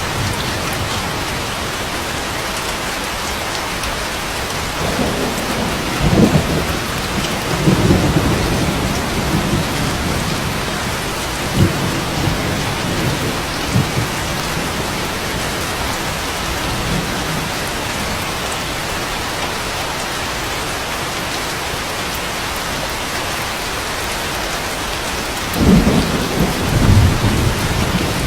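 Steady rain with low rolls of thunder, one from about five seconds in and another near the end.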